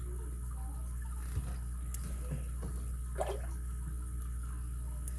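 Faint, scattered clicks and scrapes of a pick and tension wrench working the pins of an American AC20 padlock, over a steady low hum.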